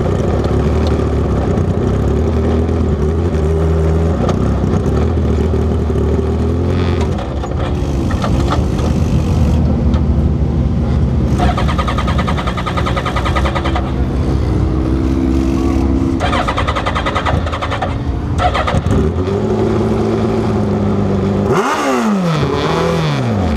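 Mini sprint race car's engine running at low speed and idling, heard close from an onboard camera on the car, with several brief blips of the throttle; near the end the revs swing up and fall away.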